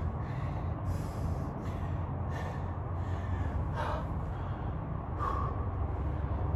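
A man breathing hard from exertion, with a sharp exhale or gasp about every second and a half, over a steady low hum.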